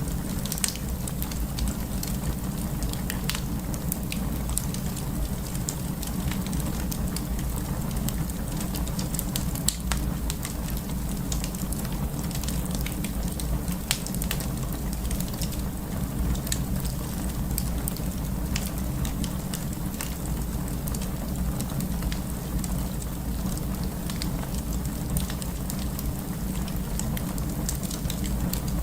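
Wood fire burning in a fireplace: a steady low rumble with scattered sharp crackles and pops from the burning wood.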